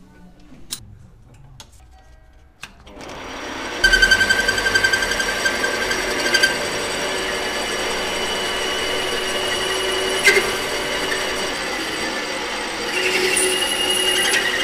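A few clicks at first, then a small metal lathe spins up about three seconds in and runs with a steady whine from its drive while it turns a piece of steel, loud and continuous, growing louder again near the end.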